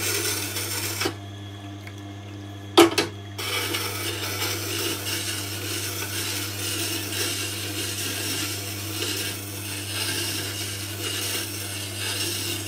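Tormek wet grinder running with a steady motor hum while a skew chisel held in a jig is drawn back and forth across the grindstone, the steel scraping on the stone. The grinding stops for a couple of seconds early on, with a single knock, then resumes.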